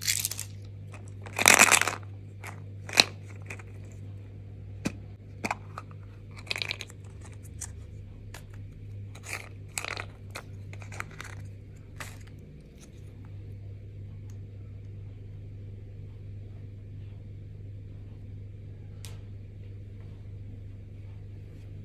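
Candy packaging crinkling and tearing in short irregular spells, with the loudest rip about a second and a half in. After about twelve seconds the handling stops, leaving only a steady low hum.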